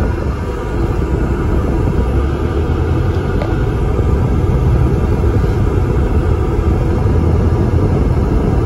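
Volvo ALX400 double-decker bus under way, heard from inside the upper deck: a steady low rumble of the diesel engine mixed with road noise.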